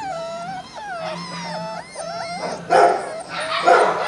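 Beagle puppies whining and whimpering in high, wavering cries that slide up and down, with two louder, sharper yips in the second half.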